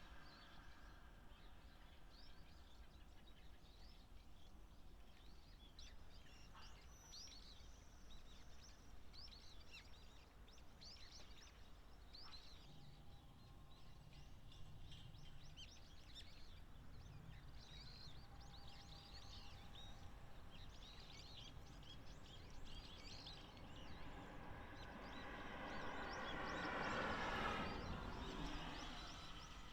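A flock of waxwings giving many short, high, thin trilling calls. Near the end a vehicle passes, swelling up and fading away, the loudest sound here.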